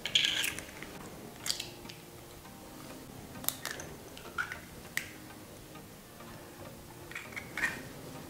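Eggshells cracking and being pulled apart over a glass bowl as eggs are broken into it: a handful of short, sharp cracks and clicks a second or two apart.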